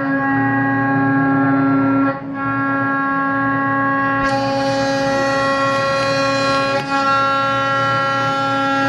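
Mini CNC milling machine running with a steady whining drone at one held pitch. The drone dips briefly about two seconds in and again near seven seconds, and a higher hiss joins about four seconds in.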